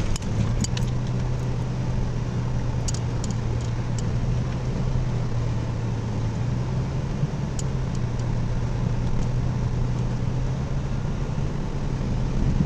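Steady low drone of a four-wheel-drive vehicle's engine and tyres, heard from inside the cab as it drives slowly over a snow-covered road. A few faint ticks are heard now and then.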